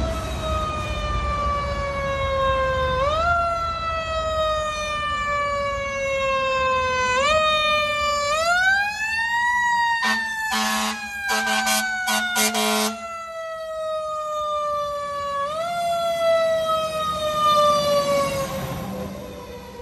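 Fire engine siren responding: a wailing tone that slides slowly down in pitch and is swept quickly back up every few seconds. About ten seconds in, a rapid string of short air horn blasts lasts about three seconds, then the siren carries on, swelling as the truck passes close and fading near the end.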